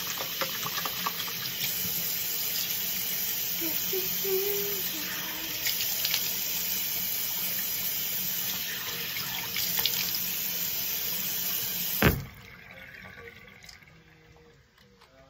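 Bathroom sink tap running hard, with water splashing as hands rinse cleanser off a face. About twelve seconds in the flow stops suddenly with a sharp knock as the tap is shut off, and only faint handling sounds follow.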